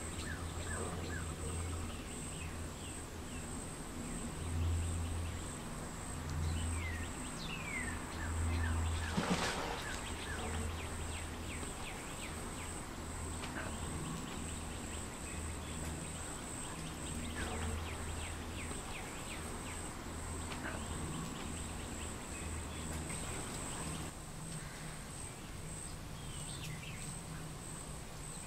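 Pond-side wildlife ambience: a steady, high-pitched trilling insect drone with scattered bird chirps over it, and an on-and-off low rumble. There is one brief rustling noise about nine seconds in.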